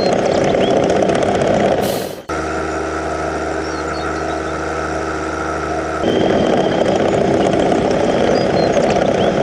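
Heavy vehicle engine running, switching abruptly between takes: a rough rumble, then from about two seconds in a steadier idling hum, then back to the rumble about six seconds in. Faint bird chirps are heard over it.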